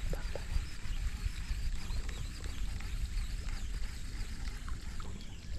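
Wind rumbling on the microphone over open water, with faint high chirping from wildlife in the marsh.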